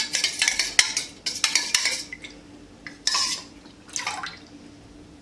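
A spoon stirring custard powder into a small amount of milk, clinking and scraping against the vessel: quick rapid strokes for about two seconds, then two shorter bursts about a second apart.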